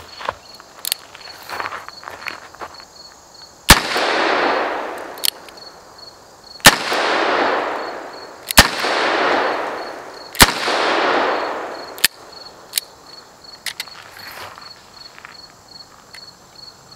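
Ruger Security-Six .357 Magnum revolver firing .38 Special +P rounds: four shots a few seconds apart, each followed by a long echo that fades over a second or two. Lighter clicks come between and after the shots.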